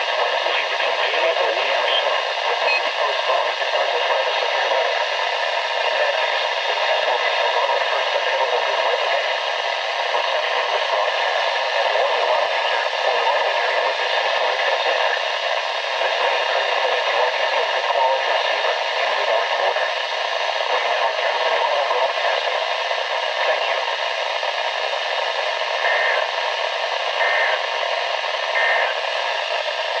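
Steady static hiss from a Midland weather alert radio's speaker, with no voice coming through.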